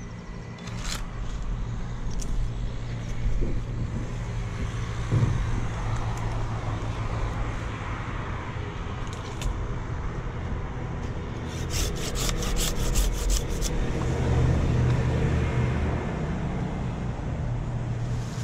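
A quick run of curved pruning-saw strokes cutting wood, about five or six strokes a second for some two seconds, a little past the middle. An engine drones steadily underneath.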